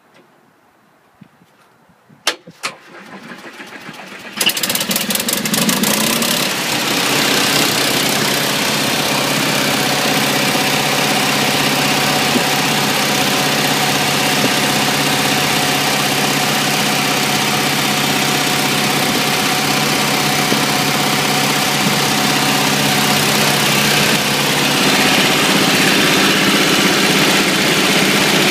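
Small green auxiliary gasoline engine of a 1960 Ford Mister Softee ice cream step van started at its switch: a few clicks and a brief spell of cranking, then it catches about four seconds in and runs steadily at an even speed.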